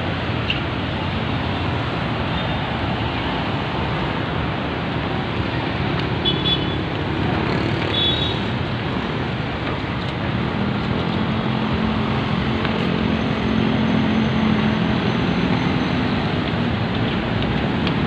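Steady road traffic noise from cars, jeepneys, vans and motorcycles on a busy road. Two brief high-pitched tones sound about six and eight seconds in, and a nearby vehicle's engine drone grows louder in the second half.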